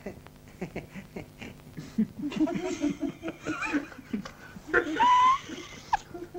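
Cartoon sound effects: a run of quick light taps, then snicker-like chattering, and near the end a short rising whistle-like tone.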